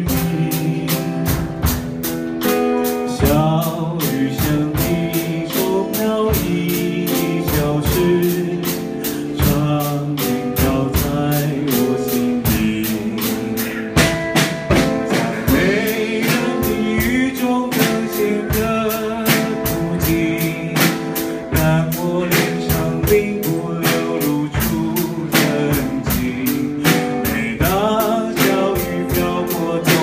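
Live band music: a man sings while strumming an acoustic guitar, backed by a drum kit and other drums keeping a steady beat.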